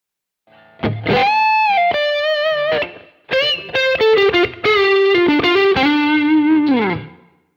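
Overdriven electric guitar playing a single-note lead phrase with string bends and a slide down on the last note. It runs through the Quad Cortex's Lone Star clean amp model, with a Victory Jack preamp capture for drive and a Graphic-9 EQ pushing the mids around 500 Hz.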